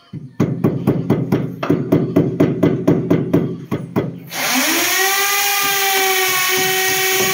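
Fast, regular tapping, about five strikes a second, during moulding installation work; about four seconds in, a power tool motor spins up with a quick rise in pitch and then runs at a steady whine.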